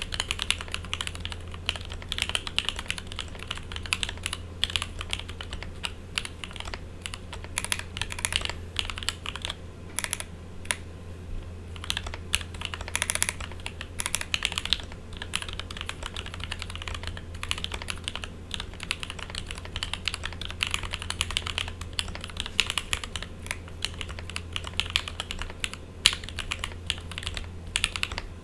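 Typing on a 40% custom mechanical keyboard with Lavender switches, an acrylic plate, an acrylic sandwich-mount case and GMK keycaps. The keystrokes are a dense run of clacks, with a brief lull about eleven seconds in. A steady low buzz runs underneath.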